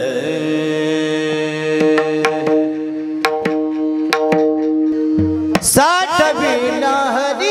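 Varkari kirtan music. A steady held note is struck through with sharp mridang strokes. Near the end a bright crash comes, and a singer's voice enters with a high, wavering sung line.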